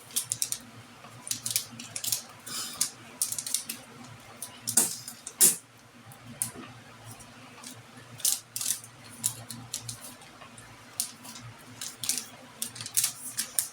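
Irregular rustling and light clicks of small objects and packaging being handled and rummaged through, with a couple of sharper knocks about five seconds in.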